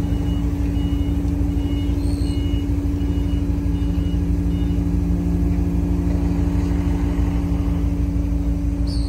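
Loud steady drone of running machinery: a deep rumble with a constant low hum that does not change. Faint high beeps repeat about every half second over the first five seconds or so.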